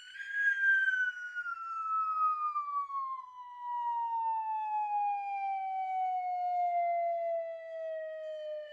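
A siren-like sound effect: one whistling tone that starts abruptly and then slides slowly and steadily down in pitch, still sounding at the end.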